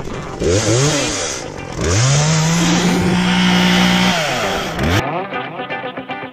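Chainsaw revved up and let back down, then held at full throttle for about two seconds as it cuts into a felled tree trunk, and blipped once more. About five seconds in the saw cuts off abruptly and guitar music takes over.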